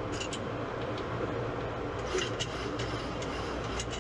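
Steady flight-deck noise of a Boeing 737-800 on approach: an even rush of airflow and air conditioning over a low steady hum, with a few faint clicks.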